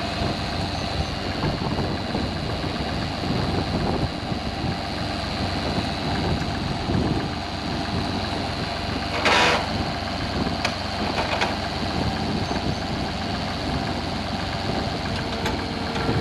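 Tractor engine running steadily, with a constant high whine over it and a short burst of noise about nine seconds in.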